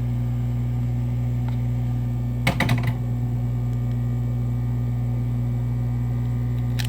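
Steady low electrical hum with a short cluster of sharp clicks and knocks about two and a half seconds in, as of small tools or parts handled on a work surface.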